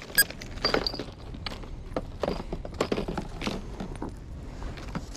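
Fishing tackle being handled on the ground: irregular clicks, taps and rustles of plastic tackle cases and packets, with one sharp click carrying a brief ringing high tone just after the start. A low steady rumble runs underneath.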